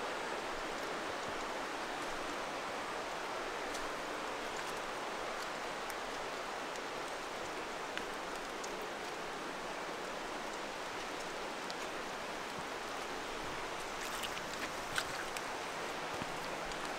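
Steady, even rushing of water around a wet forest trail, with a few soft footsteps on the muddy path near the end.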